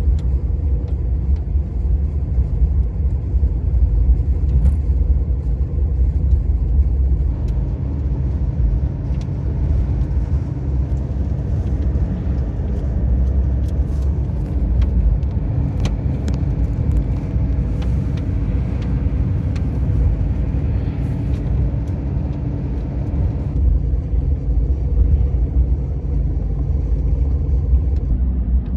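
Steady low rumble of a car driving, with engine and road noise heard from inside the cabin, and a few faint ticks.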